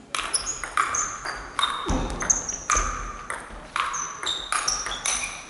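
Table tennis rally: the ball clicking sharply off the bats and the table in quick succession, about three or four hits a second, ringing briefly in a large hall. A couple of low thumps come in around the middle.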